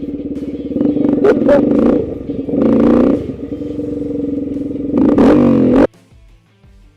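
Vehicle engine running and revving in snow, rising in pitch a couple of times, with a few clanks. It cuts off abruptly about six seconds in.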